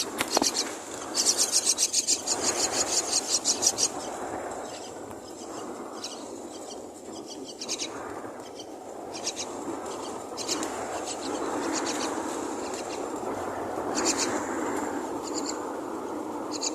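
Myna nestlings begging with fast, harsh, raspy calls, a long rapid run in the first few seconds, then short scattered bursts over a steady rustling.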